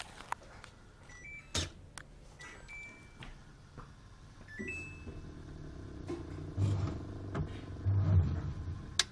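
Universal replacement control module on a Samsung top-loading washing machine beeping as its buttons are pressed: several short beeps of two or three quick rising notes, with sharp clicks. About halfway in a low hum starts, pulsing louder near the end, as the machine begins to run.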